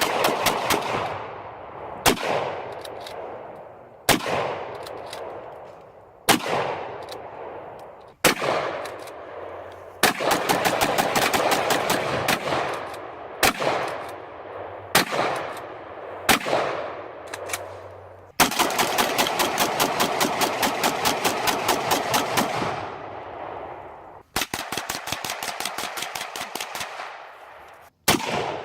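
Rifle gunfire: several rapid strings of shots, several a second, alternating with single shots about every two seconds. Each shot rings out with a long echoing tail.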